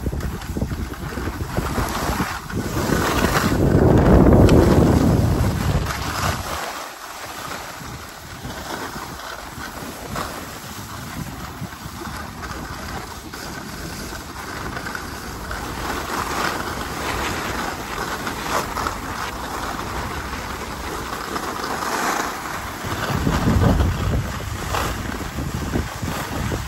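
Skis sliding and scraping over groomed snow, with wind rushing over the microphone that swells to a loud low rumble about four seconds in and again near the end.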